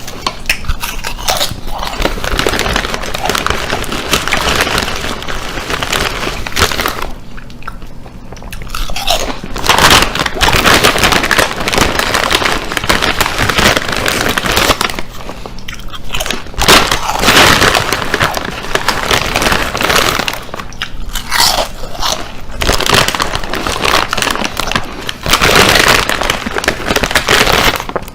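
Loud, close crunching of chips being chewed, going on in spells with several short pauses between mouthfuls.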